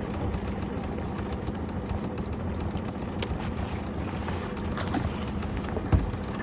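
Small open fishing boat's engine idling steadily, a low even hum. Faint clicks and one sharp knock come near the end.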